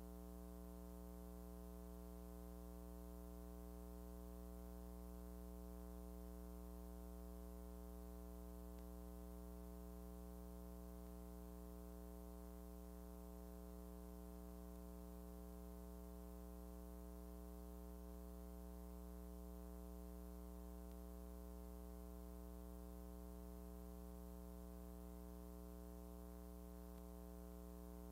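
Faint steady electrical hum with a row of overtones, unchanging throughout; the silent film carries no other sound.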